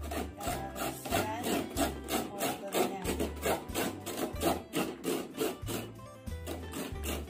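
Carrot being grated on a flat handheld stainless-steel grater: quick, repeated rasping strokes, with background music under it.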